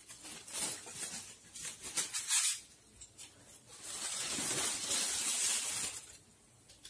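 Aluminium foil crinkling as it is peeled off the top of a cooking pot. Irregular crackles come for the first couple of seconds, then a longer, steadier rustle starts about four seconds in.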